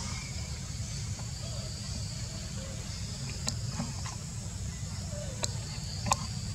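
Outdoor ambience: a steady high insect drone over a low rumble, with a few sharp clicks and faint short calls that rise and fall in pitch.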